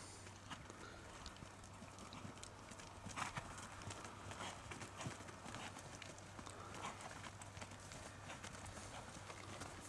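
Faint, soft hoofbeats of a horse trotting on an outdoor arena surface.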